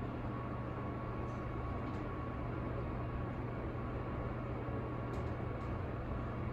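Ride noise inside the car of a 1987 Toshiba custom CELEBRAM passenger elevator travelling up a floor: a steady low hum with a faint high whine and a few light ticks.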